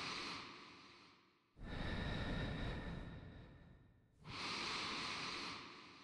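Slow, deep breathing: three long breaths, each starting suddenly and fading away over about two seconds, the middle one deeper and fuller than the other two.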